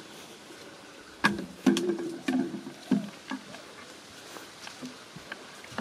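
Footsteps and camera-handling noise as someone walks quickly along a garden path holding the camera. A run of five heavier thuds about half a second apart comes in the middle, followed by lighter scattered clicks and rustles.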